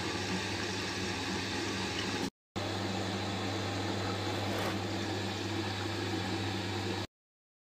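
Front-loading washing machine running with its drum turning the laundry: a steady low motor hum. It drops out briefly a little after two seconds and stops suddenly near the end.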